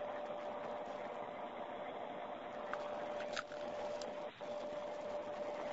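Telephone line hiss with a faint, steady single-pitched tone under it, and a few faint clicks a little past halfway through.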